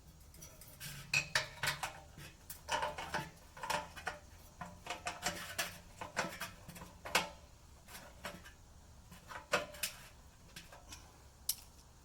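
Irregular light metallic clinks and rattles of metal forge parts being handled: a thin steel fire-pit bowl and pipe fittings knocking together.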